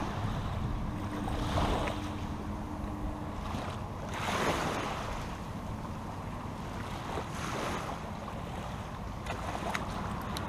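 Wind buffeting the microphone by open water, with a steady low hum underneath and two stronger gusts, about two seconds in and again about four and a half seconds in.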